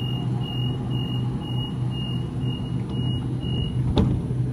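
A Sydney Trains double-deck electric train sounds its door-closing warning as a run of high, even beeps, about two a second. The beeping stops and the doors shut with a sharp thud about four seconds in, over the train's steady low hum.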